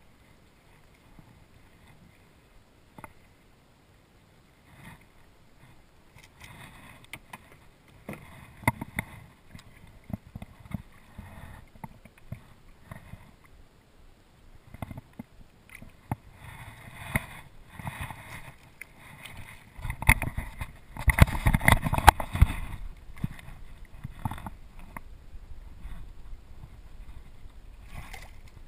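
Scattered knocks and rustling as a landed redfish is handled beside a kayak with a lip gripper, with water sloshing against the hull. About two-thirds of the way through comes the loudest stretch, a couple of seconds of heavy thumping and rustling.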